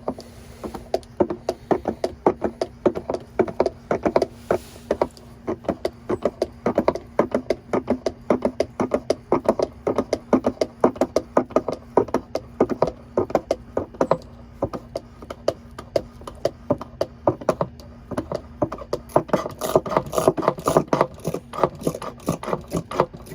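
Small hand-operated fluid pump screwed onto a bottle of gear oil, worked in quick repeated strokes with a clicking knock about three or four times a second, pumping fresh oil into a differential.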